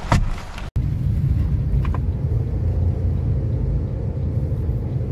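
Car on the move: a steady low rumble of engine and road noise, briefly cut off under a second in.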